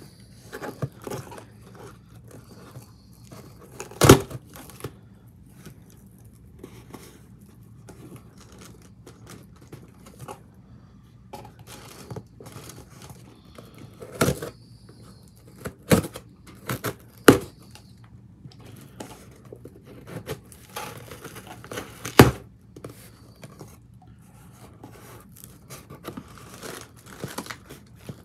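A cardboard shipping box opened by hand: fingers scratching and picking at the cardboard while the packing tape is peeled and torn from the top flaps. Several sharp taps or knocks, the loudest about four seconds in.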